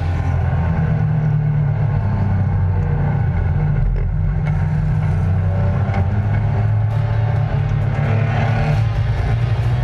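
Race car's engine running under power, heard from inside the cabin as a loud, steady drone at a fairly constant pitch.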